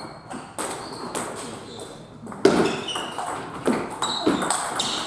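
Table tennis rally: the ball knocking sharply off rackets and the table, a handful of hits at uneven intervals, the loudest about two and a half seconds in.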